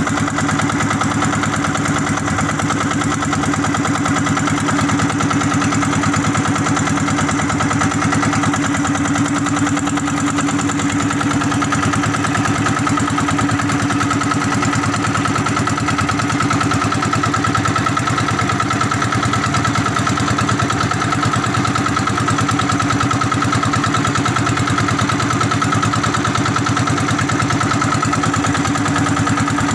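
A small outrigger fishing boat's motor running steadily at one constant pitch.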